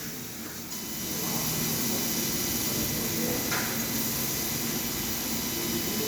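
Steady airy hiss of an air blower, which comes on under a second in and holds even, with faint steady whining tones; it is heard while a laser cutter works on PVC pipe.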